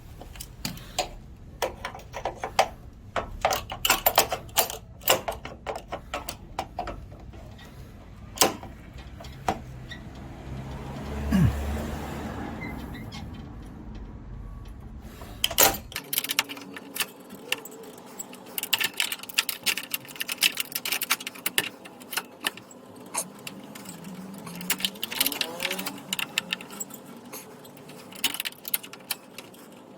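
Repeated sharp metallic clicks and taps from hand tools working on front-door hardware, in irregular clusters.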